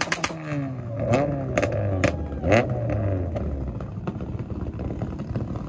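Drag-racing car launching: a rapid, even popping stops just after the start, then the engine accelerates hard through several gears. Each gear rises in pitch and ends in a sharp crack at the shift, before the sound settles and fades.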